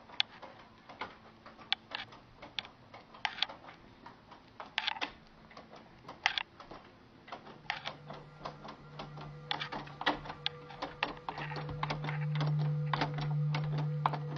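Closet doorknob and its latch rattling and clicking irregularly as the knob is turned from the other side of the door. A low steady hum sets in about halfway through and grows louder.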